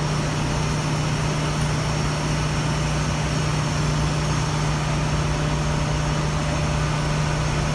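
Ship's engine-room machinery running, including the purifier feed pump, which is kept running during the filter change. The noise holds steady throughout, with a strong even hum and no separate knocks.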